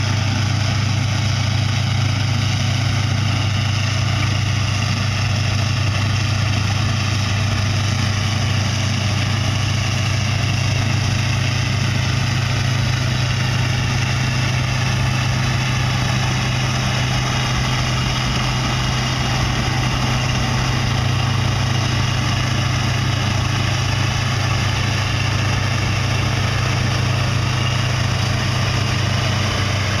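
Case IH combine running steadily while harvesting soybeans: its diesel engine working under load together with the threshing machinery, a steady low hum with no change in speed.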